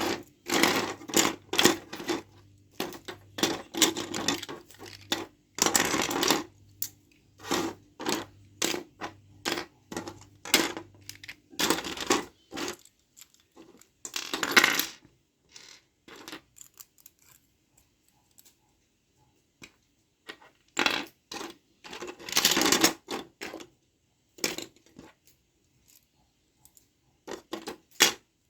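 Small parts of a toy gun clicking, clattering and scraping as they are handled during disassembly and assembly, in irregular clusters with quiet gaps. A faint low hum sits under the first part and stops about halfway through.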